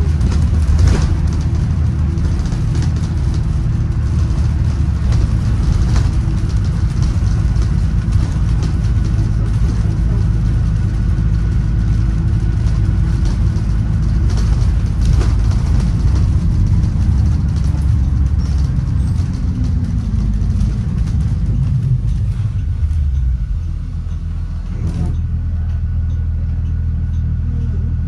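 2016 Blue Bird Vision school bus's engine running under way, heard from a seat inside the cabin with road rattle. About twenty seconds in it winds down as the bus slows, then settles into a steady idle as it stands, with a single knock near the end.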